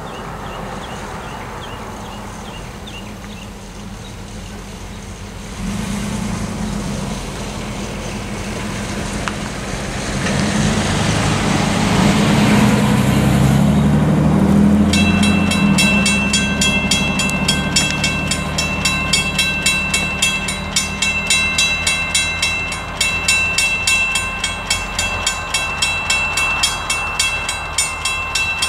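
A low rumble builds through the first half. Then, about halfway in, a Western Cullen Hayes mechanical crossing bell starts ringing in a rapid, steady rhythm and keeps going. The crossing has activated for an approaching freight train.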